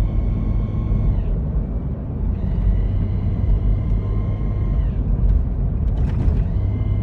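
1998 Toyota 4Runner transmission whining over a steady low rumble from the drivetrain. The whine comes in stretches, sagging in pitch and dropping away about a second in and again about five seconds in, then returning near the end, with a brief sharp noise just before. The uploader takes it for possibly a slipping clutch.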